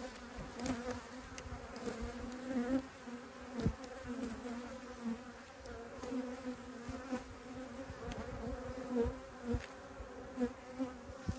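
Steady hum of a honeybee colony buzzing in an opened hive, with a few short wooden knocks as the beekeeper shifts the hive frames.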